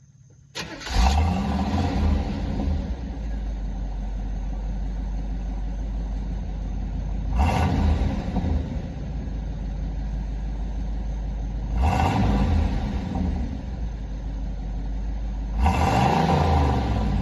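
1985 Camaro Z28's carbureted 5-liter V8 through its stock exhaust: it comes in suddenly about half a second in, idles, and is revved briefly four times, the revs rising and falling in pitch.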